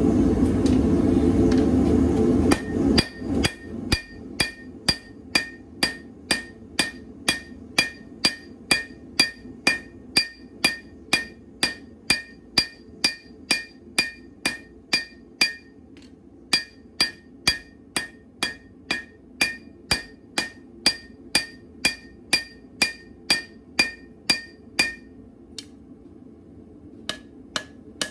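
Hand-hammer blows on red-hot quarter-inch leaf-spring steel over the horn of a TFS anvil as the blade is drawn out: steady strikes about two a second, each with a bright ring from the anvil. A loud low rushing noise fills the first couple of seconds before the hammering starts. The blows pause briefly about halfway, stop a few seconds before the end, then a few more follow.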